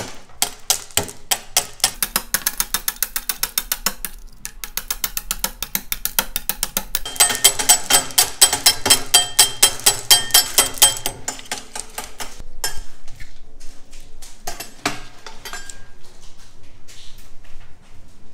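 Rapid, regular clicks, about four or five a second, of pulled hard candy being cut into small pieces. They grow louder with a glassy ring partway through, then thin out into scattered clicks.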